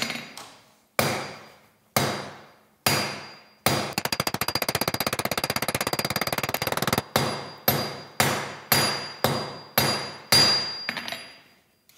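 Hand hammer striking a thin steel rod on an anvil, each blow ringing. A few single blows come first, then a fast run of rapid blows for about three seconds, then more single blows, about two a second. The cold steel is being hammered until it glows red hot, the trick for lighting a forge without matches.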